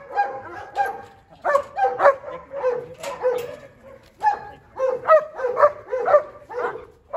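German Shepherds barking over and over, short barks coming in quick bunches of two or three with brief gaps between.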